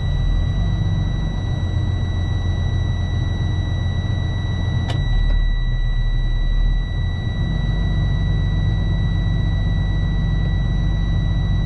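Freightliner chip truck's diesel engine running, heard from inside the cab, grows a little heavier about halfway through. The truck is derated by a DEF system fault. A steady high-pitched tone sounds throughout, and there is a single sharp click about five seconds in.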